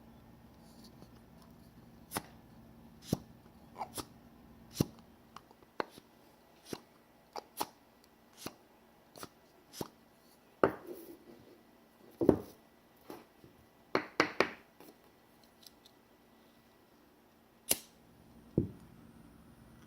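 Wooden wick of a WoodWick candle crackling as it burns: sharp, irregular pops and snaps with uneven gaps between them, a few much louder than the rest.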